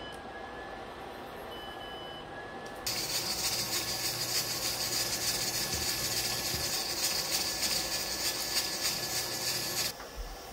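Induction cooktop beeping as its touch panel is pressed over a steady fan hum. About three seconds in, a loud steady hiss of steam starts and cuts off suddenly some seven seconds later.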